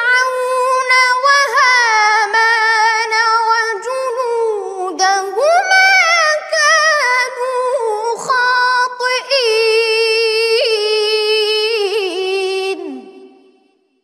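A boy's high voice reciting the Quran in melodic tajwid style: long, ornamented held notes with wavering pitch and glides. It fades out near the end.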